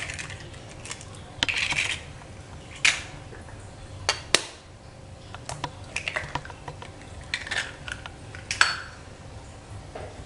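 Eggs being cracked open with a metal spoon over a glass bowl: a series of sharp taps and clicks as the spoon strikes the shells, with short crackling bursts as the shells are broken and pulled apart.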